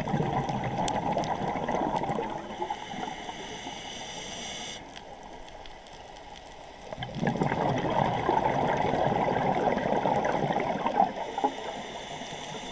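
A scuba diver's exhaled bubbles gurgling out of the regulator underwater in two long bursts, one at the start and one about seven seconds in. Between them is a quieter, higher hiss that cuts off sharply.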